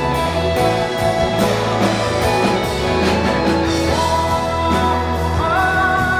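A rock band playing live: full band with bass and drums keeping a steady beat under held melodic notes, with new sustained high notes coming in about five and a half seconds in.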